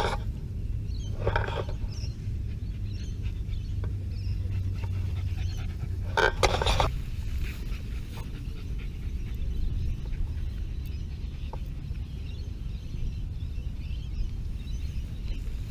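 Dog panting in two short breathy bursts, about a second in and about six seconds in, over a steady low rumble.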